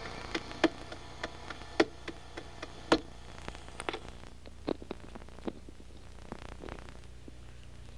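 Scattered, irregular light knocks and taps of people moving about and settling into chairs on a stage, over a steady low electrical hum.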